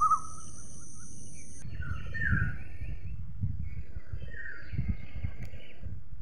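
House sparrow chirping: a few short, falling chirps several seconds apart, over a steady low background rumble. A thin high steady tone runs at the start and cuts off suddenly about one and a half seconds in.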